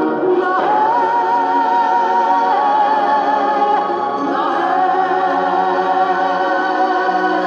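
Recorded Christmas song: a singer holds long notes with a wide vibrato over instrumental accompaniment.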